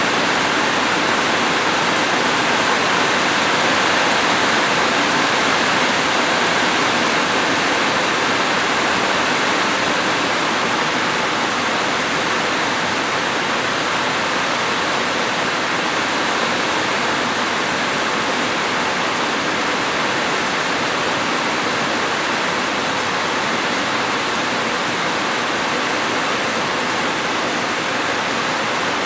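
Steady heavy rain, a dense even hiss with no single drops or breaks standing out.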